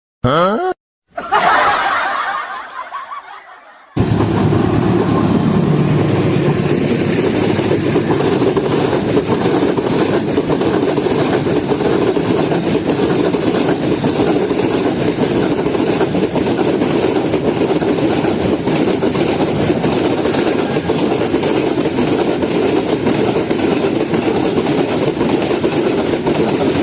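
A train running past: a loud, steady rumble and rattle that starts abruptly about four seconds in, after a short sound that fades away.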